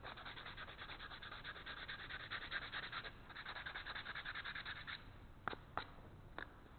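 Fine 220-grit sandpaper rubbed back and forth by hand on a 2x4 wood block in quick, even strokes for the final smoothing, stopping about five seconds in; a few light ticks follow.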